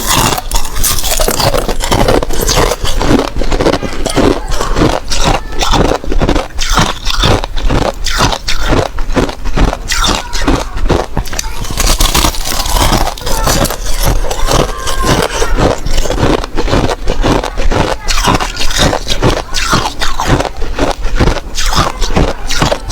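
Thin sheets of ice being bitten and chewed close to the microphone: a rapid, unbroken run of crisp crunches, a few a second.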